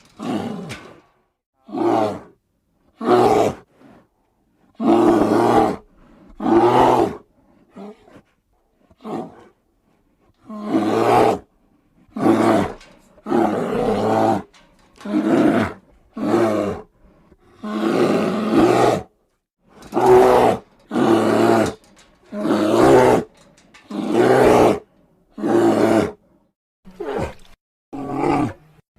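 Bear calls: a long series of about twenty short roars, each lasting under a second, separated by brief gaps of silence.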